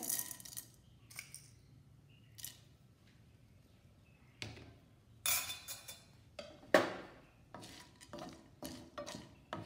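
A steel spoon clinking against the dish and the rim of a nonstick kadai as chana dal is added, then a spatula scraping and stirring peanuts and dal in the pan. Separate clinks and short scrapes, the sharpest knock about two-thirds of the way through.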